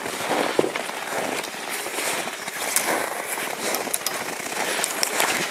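Footsteps crunching in snow and bare branches scraping and rustling against jackets, an irregular run of crunches and crackles.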